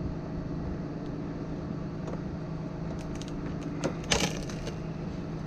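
Bucket truck engine idling steadily, with one short sharp crack or knock about four seconds in.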